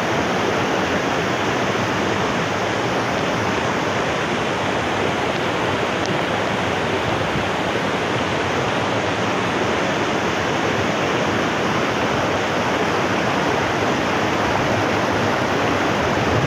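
River water spilling over a low concrete weir and rushing through rocky rapids: a loud, steady rushing noise.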